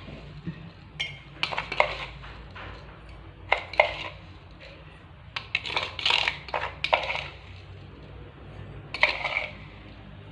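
Metal spoon clinking against a glass and dishes while a drink is made up, in four short bursts of sharp clinks.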